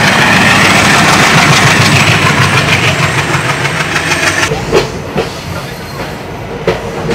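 Express passenger train running at speed, heard from aboard: a loud rush of wheel and track noise with a rapid clattering rhythm. About four and a half seconds in it gives way to a quieter background with a few sharp clicks.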